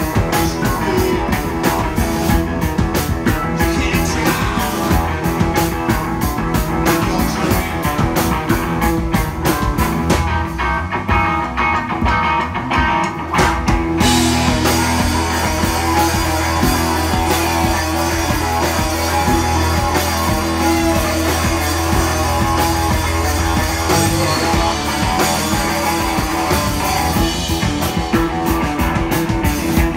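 Live psychedelic rock band playing loudly on electric guitars, bass guitar and drum kit. The cymbals drop out for a few seconds about ten seconds in, then the band comes back in with a long held bass note, and fast regular cymbal strikes return near the end.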